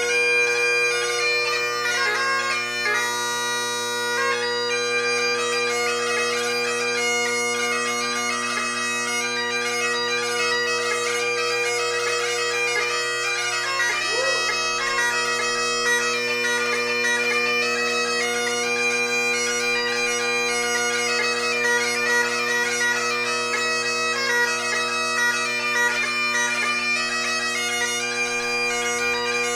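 Great Highland bagpipe played solo: the drones hold a steady chord while the chanter plays a quick melody with rapid grace notes.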